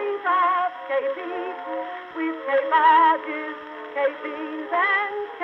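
Background music: a song whose lead voice wavers with a strong vibrato. It sounds thin, like an old recording, with no bass.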